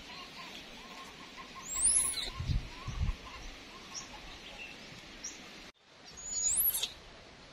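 Two shrill, very high calls, each sweeping up and then down, about four seconds apart. Two dull low thumps come between them, over a steady outdoor background with faint repeated chirps.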